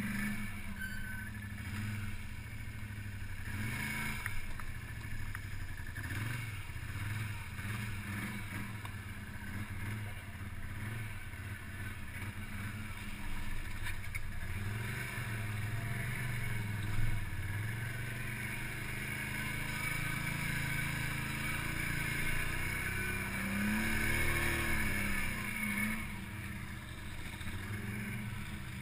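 ATV engine running under way over rough, muddy ground, its pitch rising and falling repeatedly with the throttle.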